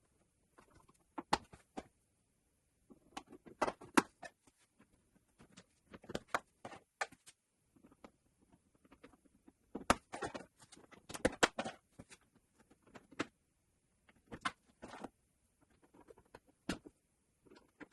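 Irregular clicks, taps and rustles from hands handling wiring and tools, coming in short bunches every second or two.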